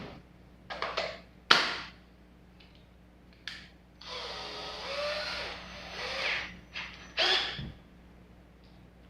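Ryobi cordless drill being handled, with several sharp clicks and knocks, then its motor running for about two and a half seconds midway, its pitch wavering.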